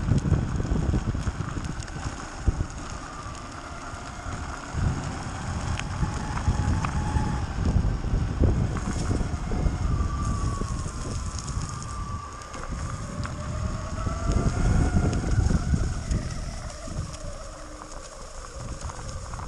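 Electric mountainboard on the move: the whine of its twin 6384 brushless motors and belt drive rising and falling in pitch with speed, over the rumble of pneumatic tyres and wind buffeting the microphone.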